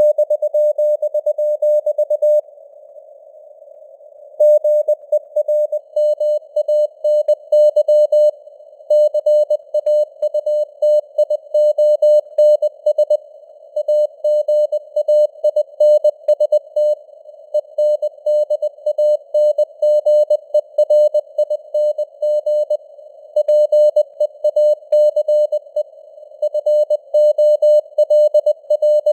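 Morse code (CW) at 20 words per minute: a steady-pitched beep keyed rapidly on and off in dots and dashes over a faint band of simulated radio hiss. The keying pauses for about two seconds a few seconds in, then runs on.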